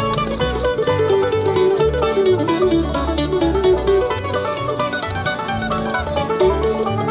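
Bluegrass band playing an instrumental break: banjo, mandolin, guitar, dobro and bass. A lead melody winds up and down over a steady run of bass notes.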